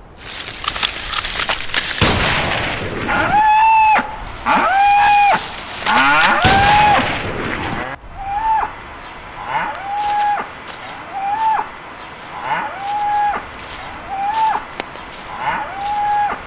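A series of short pitched animal calls, each rising quickly and then holding level, about one a second. In the first half a few longer, louder calls sound over a loud rushing noise.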